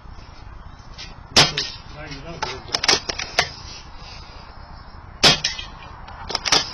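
Two air rifle shots about four seconds apart, each a sharp crack followed by a few lighter clicks and clinks, over steady wind noise on the microphone.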